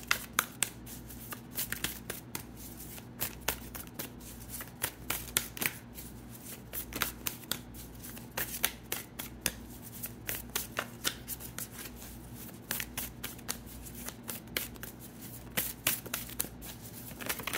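Tarot deck being shuffled by hand: a long run of quick, irregular card clicks and flicks, over a steady low hum.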